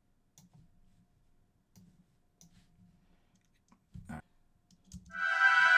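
Faint clicking of a computer mouse and keys, with two louder clicks about four and five seconds in. Just before the end a bounced synth-pad atmosphere drenched in frozen reverb starts playing back as a loud, sustained chord.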